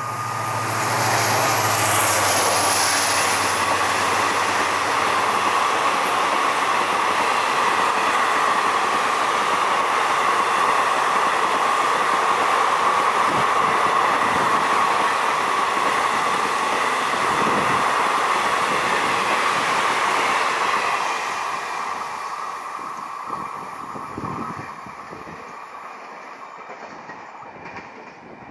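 Express passenger train passing at high speed: a low diesel locomotive hum in the first few seconds, then about twenty seconds of steady coach wheels rushing over the rails, fading away in the last several seconds as the train recedes.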